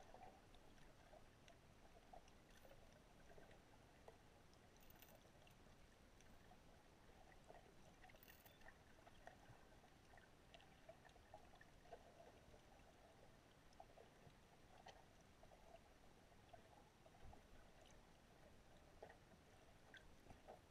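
Near silence: faint underwater ambient noise picked up by a submerged camera, with scattered faint clicks and ticks.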